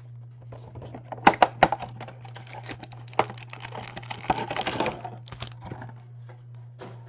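Clear plastic wrapping crinkling and snapping as a trading card box or pack is opened by hand, in a run of irregular sharp clicks and rustles. A steady low electrical hum sits underneath.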